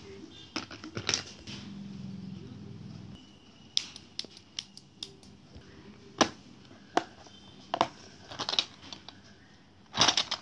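Small glass jars with plastic screw caps being handled and set into a clear plastic organizer box: irregular clicks, taps and clinks of glass and plastic. A brief low hum sounds about a second and a half in.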